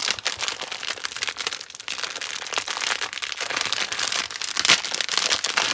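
Clear plastic zippered bag crinkling and crackling as hands handle and turn it over, a continuous run of fast crackles, loudest about five seconds in.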